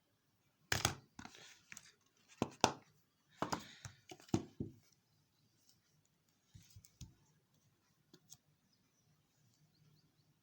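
Phone box and packaging being handled during unboxing: a run of sharp clicks and knocks mixed with short tearing, rustling scrapes over the first few seconds, then a few faint clicks.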